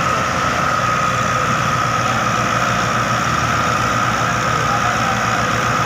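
Diesel engines of two tractors, one a Ford 4600, running steadily under heavy load as they pull a loaded sugarcane trolley.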